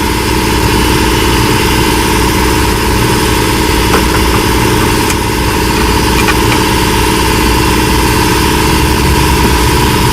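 Gator 6x4 utility vehicle's engine running steadily at a constant speed, loud, with a steady high tone over it.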